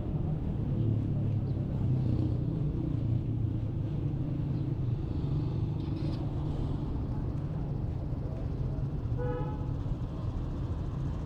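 City street traffic: a steady low rumble of car and motorcycle engines. About nine seconds in, a short pitched tone sounds once.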